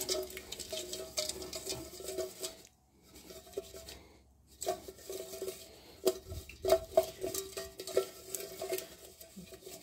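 Kite leader line being stirred around in a steel pot of melted beeswax: scattered light clinks, taps and scrapes against the metal pot, over a faint steady hum.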